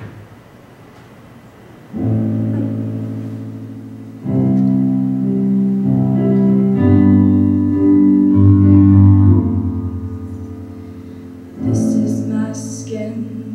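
Electronic keyboard playing a slow piano introduction: a few sustained chords, each struck and left to fade. Near the end a woman's singing voice comes in over a new chord.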